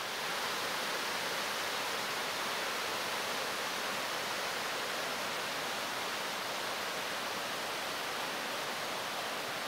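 Floodwater pouring over a riverbank in a steady rush of whitewater.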